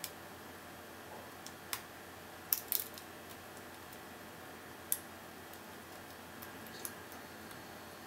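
Small, irregular metallic clicks of a lock pick and tension tool working the pin-tumbler cylinder of a brass Vachette Atlas 50 mm padlock, over a steady faint hiss. The sharpest clicks come about two and a half seconds in and again near five seconds.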